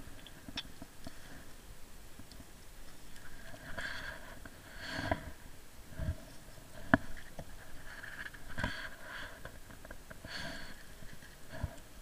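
Paraglider pilot's harness, straps and clothing rustling as he shifts while hanging in a tree, with occasional soft knocks and a couple of sharp clicks.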